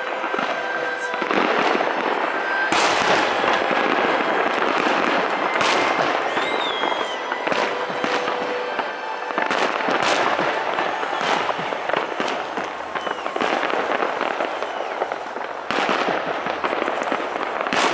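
Aerial fireworks shells bursting overhead: a string of sharp bangs every one to three seconds, with continuous crackling between them.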